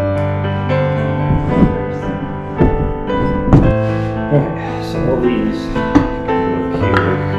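Background piano music, a run of struck, sustained notes.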